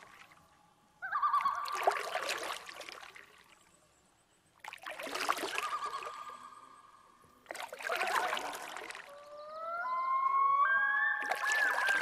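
Water gushing in repeated surges about every three seconds, each fading away, with steady high tones running through them. Near the end the tones hold and warble.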